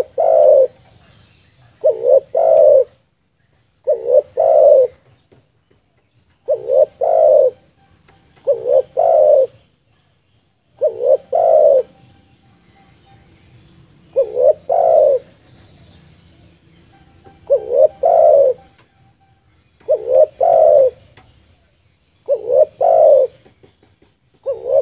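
Spotted dove (tekukur) cooing in a steady series. Each phrase is one or two quick short notes followed by a longer coo, repeated every two to three seconds: a tekukur lure call.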